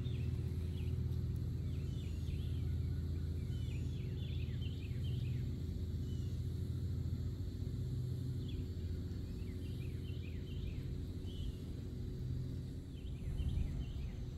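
Small birds chirping in short, quick calls, scattered throughout, over a steady low rumble of wind on the microphone.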